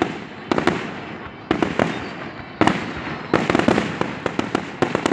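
Aerial fireworks bursting: clusters of sharp bangs about once a second, each dying away in an echoing tail.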